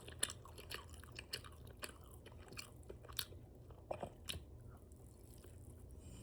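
Open-mouthed chewing of chicken wings, with wet lip smacks about twice a second that thin out in the last couple of seconds.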